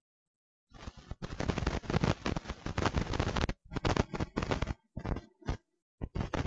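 Dense, rapid crackling that starts about a second in and breaks off abruptly into silence several times.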